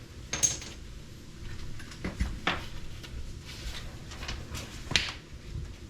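Scattered sharp metal clinks and knocks of hand work at a car's front wheel hub, about four in all: lug nuts being put back onto the wheel studs and tools handled. The first clink has a brief high ring.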